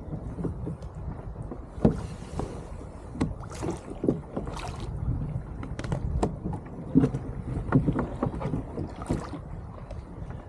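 Irregular knocks and clunks of gear being handled on a sit-on-top fishing kayak, over a steady low rumble of wind on the microphone. The sharpest knocks come about two seconds in and again near the middle.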